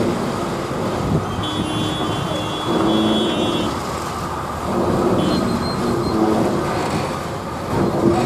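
Heavy vehicle traffic, buses and trucks, rumbling steadily, with horn-like tones sounding a few times over it.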